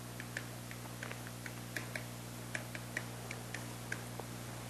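Pen tip writing on a lined paper pad: a string of small, irregular ticks and taps as the strokes of handwritten Korean letters are put down, over a faint steady electrical hum.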